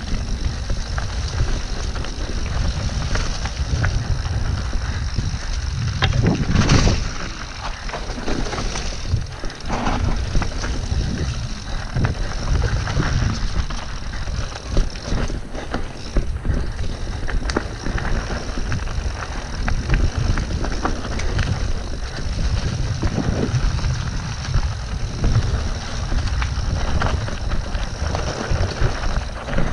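Mountain bike descending dirt singletrack: tyres rolling over the trail with frequent knocks and rattles from the bike over bumps and roots, under a steady rumble of wind noise on the microphone. A louder rush comes about seven seconds in.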